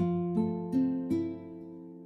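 Background music of plucked strings: four notes struck in quick succession over the first second, then left ringing and fading away.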